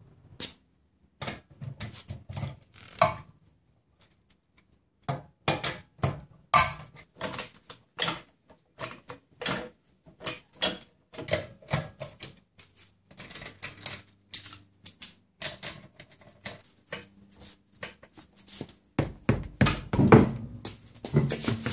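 An irregular run of light clicks and knocks from handling and moving about, with work-boot footsteps on a concrete garage floor loudest near the end.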